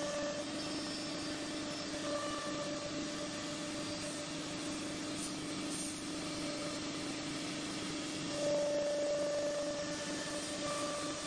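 Multi-spindle CNC wood router running: a steady spindle whine over the rush of dust extraction, with a higher tone that comes and goes and gets louder about eight and a half seconds in.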